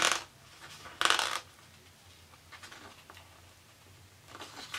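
Paper sticker sheets rustling as they are flexed and handled: a short rustle at the start, a longer one about a second in, and softer rustles near the end.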